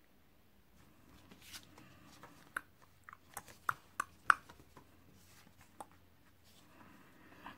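Paper and card sheets handled on a cutting mat: faint rustling with a scatter of sharp little taps and clicks as sheets are picked up, swapped and laid down, busiest in the first half.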